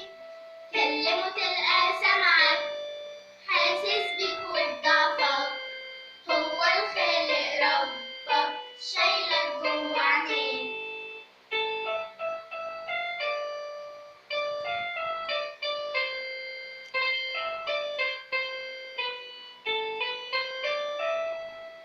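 A young girl singing an Arabic song with electric keyboard accompaniment. About halfway through the voice stops and the keyboard carries on alone with a melodic instrumental passage.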